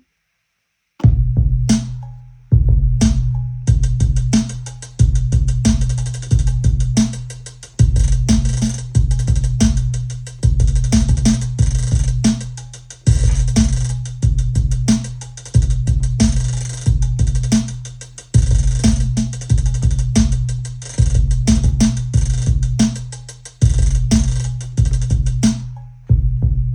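Trap beat played on a Behringer LM Drum drum machine with an 808-style kit: long, slowly decaying 808 bass notes under fast hi-hat ratchets and rolls and a steady backbeat of snare hits. It starts about a second in.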